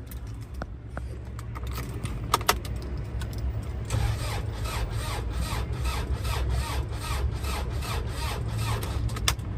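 Starter motor slowly cranking the diesel engine of a BAIC Zhanqi camper on a weak battery, with an even, repeating beat over a steady low hum, not catching. The engine isn't turning fast enough for the diesel to fire because the battery is badly run down.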